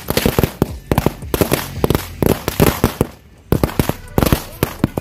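Firecrackers bursting on the ground in a rapid, irregular series of sharp bangs, several a second, with a brief lull about three seconds in before the bangs start again.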